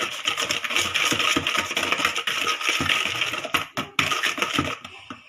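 Hand whisk beating batter in a bowl, its wires clicking and scraping rapidly against the bowl, with a brief pause before stopping near the end.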